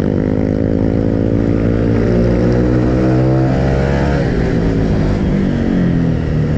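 Motorcycle engine under way, pulling hard with its pitch climbing steadily for about four seconds, then dropping as the throttle comes off, over wind and road noise.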